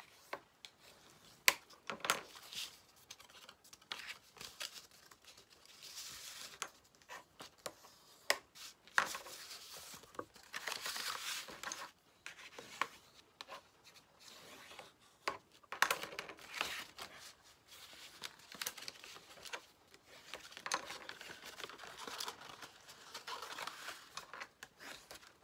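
Cardstock being folded and creased along its scored lines: paper rustling and crackling, with a few sharp clicks.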